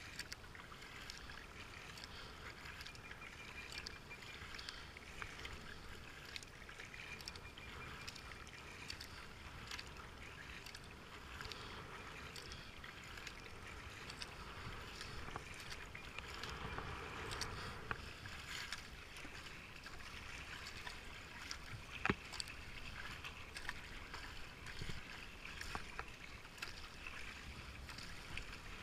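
Kayak paddle strokes: the blades dipping into and pulling through river water, with steady splashing and dripping and small sharp ticks of water and paddle, plus a little wind on the microphone.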